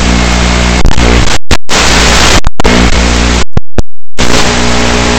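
A small 2S FPV quadcopter's motors and propellers buzzing loudly in short bursts while running in turtle mode to flip it upright from upside down. The onboard camera microphone overloads into brief dropouts several times. After about four seconds it settles into a steadier, quieter hum once the quad is back on its feet.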